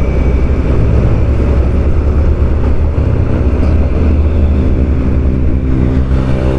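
Motorcycle engine running while riding along a road, mixed with road and wind noise. The engine note settles into a steadier hum in the second half.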